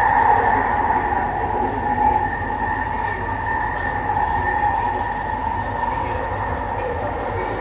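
Expo Line SkyTrain car running along the track, heard from on board: a steady rumble with a continuous two-pitched whine.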